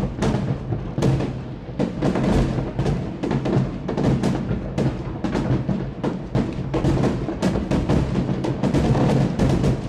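Aerial fireworks shells bursting in a dense barrage, several sharp bangs a second over a continuous low rumble.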